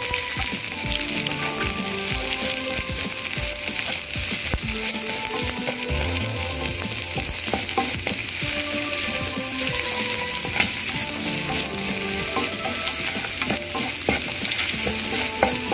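Sliced shallots, curry leaves and dried red chillies frying in hot coconut oil in a pan, with a steady sizzle and scattered small clicks as a spatula stirs them.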